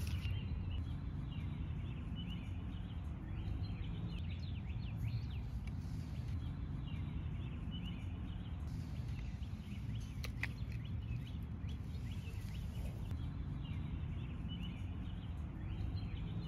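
Outdoor ambience: steady low wind noise on the microphone, with small birds chirping in short, quick notes throughout.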